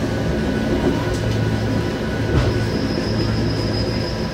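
MBTA commuter rail train running, heard from inside the coach: a steady low rumble and hum. About two and a half seconds in there is a knock, and a thin high steady whine of the wheels begins and holds.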